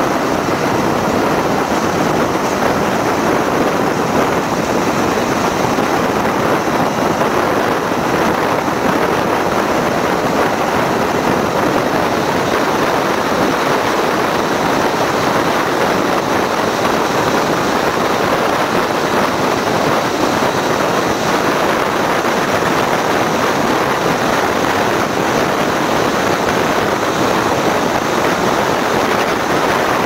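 Steady rushing noise of a road vehicle travelling at speed, tyre and wind noise with no clear engine note.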